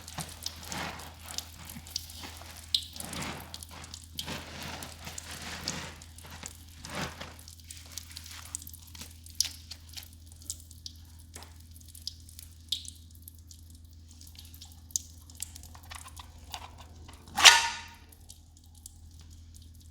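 A wet, soapy mix of sponges and foam being squished and worked by hand, with squelching strokes for the first few seconds, then drips and small clicks. One loud, brief knock or scrape comes a couple of seconds before the end.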